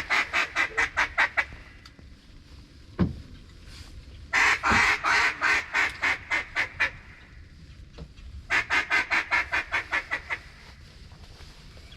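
Duck quacking in three fast runs of about ten loud notes each, roughly six a second, each run trailing off. A short low thump about three seconds in.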